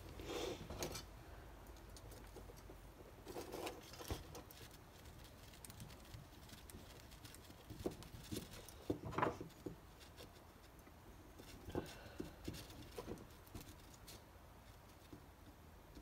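Faint scattered clicks and taps of small screws being picked up and set by hand into the plastic housing of a neutral safety switch.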